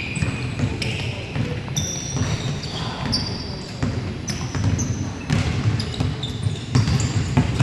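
Basketball being dribbled and bouncing on a hardwood gym floor, with sneakers squeaking in short, high chirps as players move.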